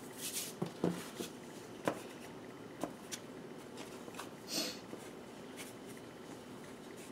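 A few light taps and soft scrapes as a plastic bench scraper is picked up and pressed down through a mass of bread dough onto the countertop, with a short hiss about four and a half seconds in.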